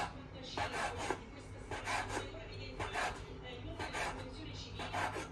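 Rhythmic rasping, scraping strokes, about one a second, as of something being rubbed or scraped in kitchen food preparation.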